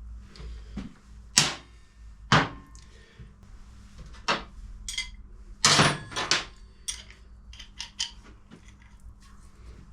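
Hand tools and metal parts knocking and clinking during motorcycle engine strip-down work, several sharp knocks with a cluster just under halfway through. Some of the lighter clicks leave a short metallic ring.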